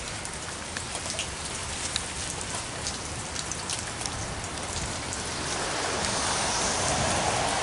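Rain falling, drops ticking on nearby surfaces over a steady hiss that grows louder about five and a half seconds in.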